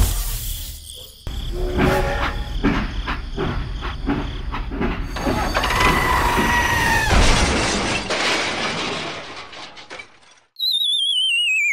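Sound effects for a toy tractor overturning: a rapid run of knocks and crashes, with a horn sounding for about a second around six seconds in. Near the end, after a brief drop to near silence, a falling, wavering whistle starts abruptly.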